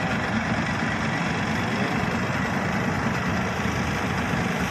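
Diesel engine of a tractor-mounted combine harvester running steadily at an even pace, with a faint high whine above it.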